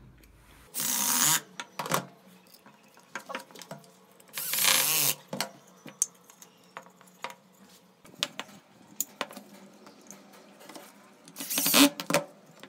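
Cordless drill driving screws into wood in short runs of under a second: one near the start, one about four seconds in, and one near the end. Small clicks and knocks of wood and screws being handled come between the runs.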